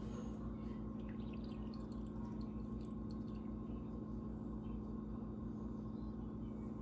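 Chai tea dripping and trickling from a hand-squeezed cheesecloth into a ceramic mug, with faint scattered drip ticks, most of them in the first few seconds. Under it runs a steady low electrical hum, the loudest sound throughout.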